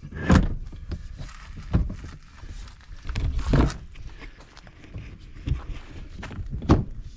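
Irregular thumps and clunks from handling parts of a golf cart, with a few louder knocks.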